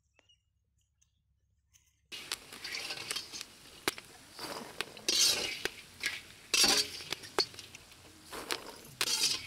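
Near silence for about two seconds, then popped popcorn rustling and shifting in a large steel bowl, in irregular bursts with light metallic clinks against the bowl.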